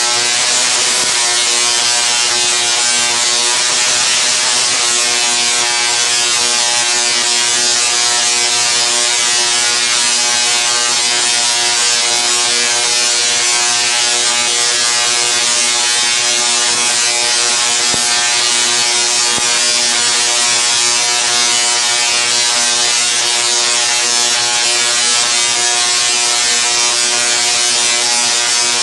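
SIDAC-driven solid-state spark gap Tesla coil, powered from a pole transformer, running continuously and throwing long streamer arcs into the air. It makes a loud, steady, hissy buzz with an even pitched hum running through it.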